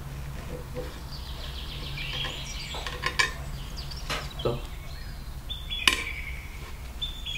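Flat metal kebab skewer clinking and scraping against a ceramic plate as the grilled kebab is slid off it with a paper towel: a few sharp clinks, the loudest about six seconds in. Birds chirp in the background over a low steady hum.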